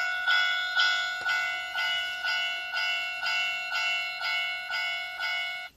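Japanese railway level-crossing warning bell, the electronic ding of a 1/24-scale capsule-toy crossing, repeating about twice a second. It stops abruptly near the end.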